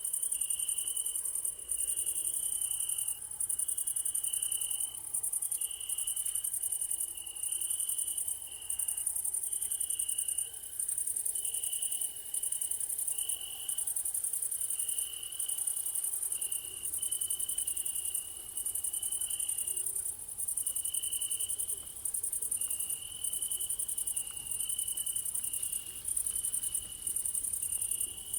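Crickets chirping in a steady night chorus: a loud, high continuous trilling that breaks off briefly about every second, with a second, lower-pitched chirping insect repeating short notes underneath.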